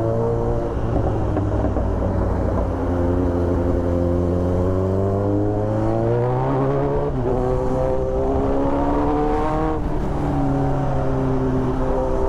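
Kawasaki Z900's inline-four engine through an Austin Racing aftermarket exhaust, pulling under acceleration with the pitch climbing. The pitch drops sharply twice, about seven seconds in and again near the ten-second mark, as the rider shifts up. A low rumble of wind and road noise runs underneath.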